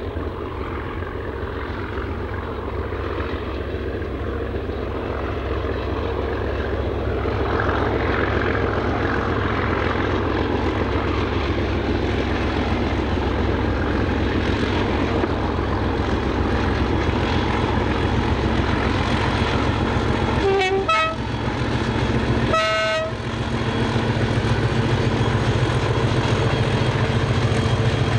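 Class 37 diesel locomotive's English Electric V12 engine working hard under load, growing steadily louder as it comes closer. Two short horn blasts sound about two-thirds of the way through, the first stepping between two notes.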